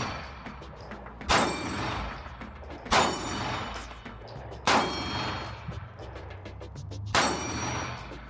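Four single shots from a Canik TP9 Elite SC 9mm pistol at an unhurried, uneven pace, about one and a half to two and a half seconds apart. Each crack is followed by a brief high ringing.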